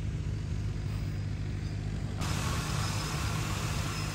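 Rotors of a DJI Agras T40 agricultural drone humming steadily in flight, with a wider hiss joining about two seconds in.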